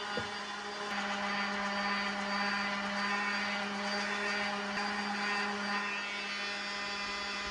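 Random orbital sander running steadily with coarse 60-grit paper on a laminate dresser top, a constant hum over a gritty hiss that grows a little louder about a second in.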